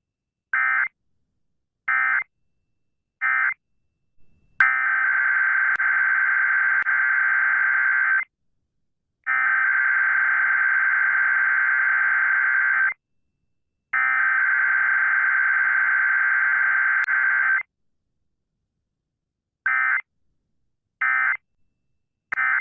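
Emergency Alert System SAME digital data bursts: three short bursts about a second apart, then three long bursts of about three and a half seconds each with short gaps, then short bursts again near the end.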